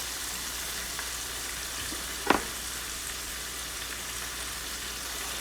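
Steak frying in a pan with onions and green peppers, a steady sizzle, with one sharp knock a little over two seconds in.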